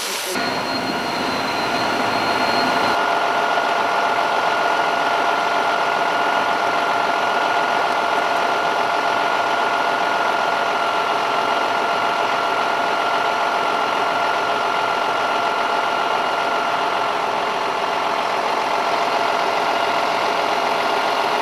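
A small engine running steadily at one even speed, its hum holding a constant pitch throughout.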